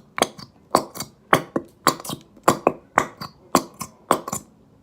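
Slime being squeezed and worked by hand, making sharp clicking pops in a steady rhythm of about two a second, stopping shortly before the end.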